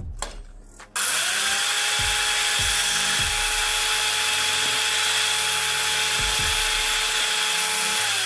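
Handheld electric disc cutter switched on about a second in. It runs at a steady high whine while its disc cuts into a water-pump motor capacitor. Near the end it is switched off and the whine falls in pitch as the disc winds down.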